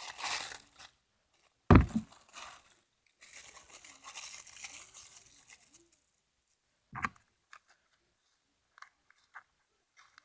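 Crinkling and rustling of a taped paper squishy stuffed with cut-up plastic bag pieces as it is pushed down and squeezed by hand. There is a loud thud just before 2 s, a longer crinkle from about 3 to 6 s, and a sharp knock at about 7 s.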